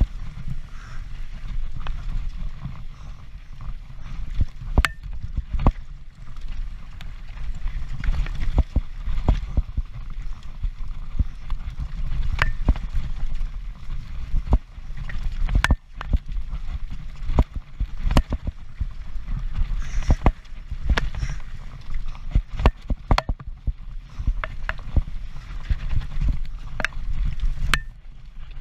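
Transition Patrol full-suspension mountain bike descending a rough trail at speed. A steady low rumble of tyres and wind on the camera runs under frequent sharp knocks and rattles as the wheels strike rocks.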